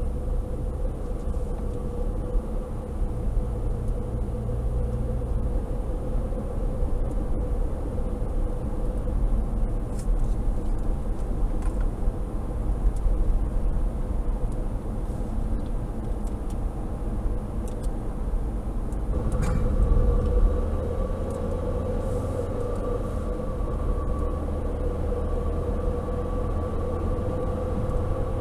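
Inside the cabin of a 2011 Opel Astra J 1.6T while driving: steady engine hum and tyre rumble on the road. A little after two-thirds through, the engine note shifts and briefly gets louder.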